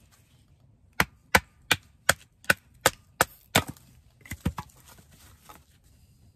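Wooden baton hammering the spine of a Lionsteel M2M knife to split a stick: eight sharp knocks in quick succession, about two and a half a second, then a few lighter knocks and cracks as the wood splits apart.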